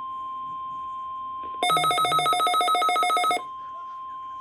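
NOAA weather radio giving a short warbling electronic alert tone of about two seconds, pulsing around ten times a second, as part of a Required Weekly Test. A faint steady whistle-like tone sounds underneath throughout.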